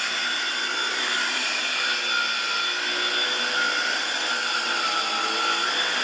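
Black+Decker PowerSeries Extreme cordless stick vacuum running steadily as it is pushed over carpet: the rush of suction with a high motor whine that wavers slightly in pitch.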